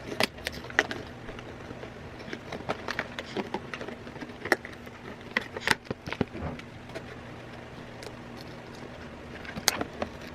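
Toy packaging being handled and torn open: scattered crinkles and clicks, over a faint steady low hum.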